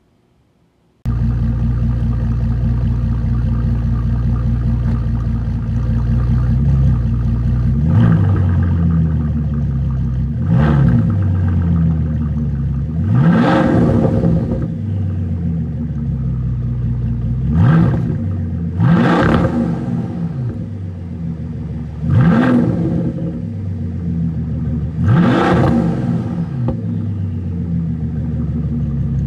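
Bentley Continental Supersports' 6.0-litre turbocharged W12 engine through a Quicksilver titanium exhaust, idling and then revved about seven times, each rev rising and falling back to idle. Some revs are short blips; a few climb higher and louder.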